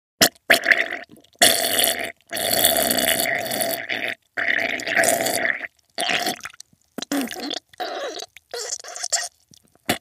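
Diarrhea sound effect: a string of wet, fart-like bursts broken by short gaps, the longest lasting over a second.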